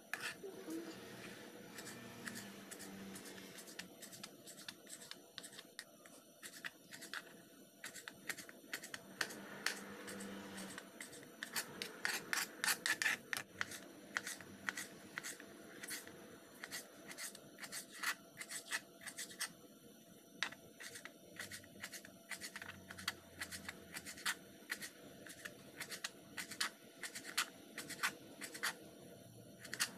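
Knife dicing a tomato on a plastic cutting board: rapid runs of sharp taps as the blade strikes the board, with some scraping. The taps are sparse at first, then come thick and fast from about ten seconds in.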